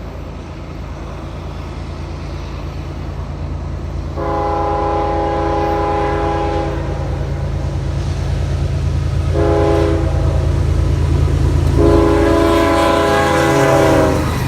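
Diesel locomotive's multi-tone air horn sounding a chord in a long blast, a short blast and a final long blast, completing the long-long-short-long grade-crossing signal. Beneath it is the steady rumble of the approaching locomotive, growing louder. The last blast drops in pitch near its end as the train passes.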